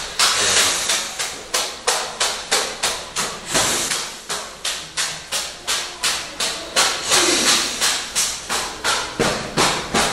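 Steady rhythmic percussive striking, about three sharp hits a second, each dying away quickly.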